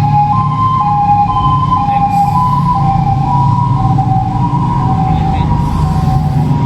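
A two-tone siren alternating between a high and a low note, a little under once a second for each pair, over a steady low rumble.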